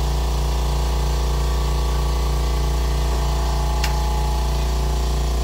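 Air compressor running steadily with a low hum and a regular pulse while it inflates an ATV tire's inner tube. A short click about four seconds in.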